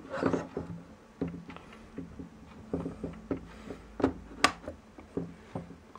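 Scattered clicks and knocks of a 3.5-inch hard drive being pushed and worked into the connector slot of a plastic hard drive dock, with one sharper click about four and a half seconds in.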